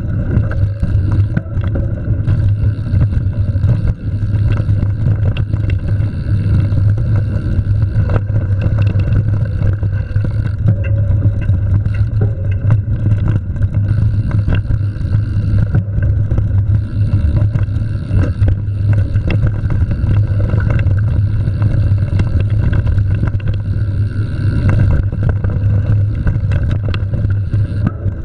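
Mountain bike riding fast down a sandy dirt trail: a steady, heavy low rumble of wind buffeting the ride camera's microphone, with tyres rolling over the dirt and frequent clicks and knocks from the bike rattling over bumps.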